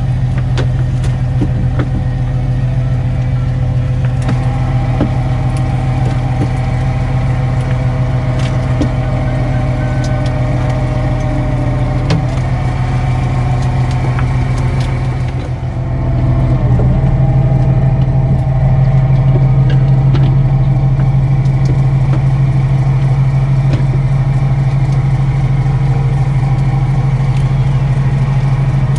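Fishing boat's engine droning steadily, with a strong low hum; it dips briefly about halfway through and then runs louder. Scattered light clicks and knocks come from gear on deck.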